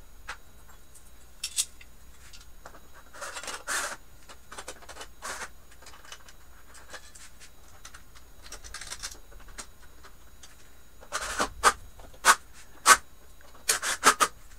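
Clicks, scrapes and clatter of a metal bracket and screws being handled and fitted against a TV's sheet-metal back panel, with a cluster of sharper, louder bursts near the end.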